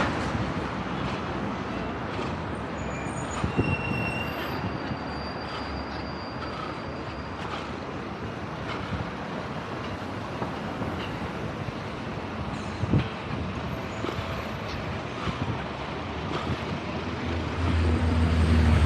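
City street traffic noise: a steady wash of passing vehicles, with a heavy vehicle's engine rumbling close by near the end.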